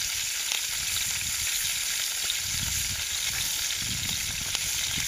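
Whole perch sizzling in oil in a frying pan over a campfire: a steady frying hiss with small crackles and pops.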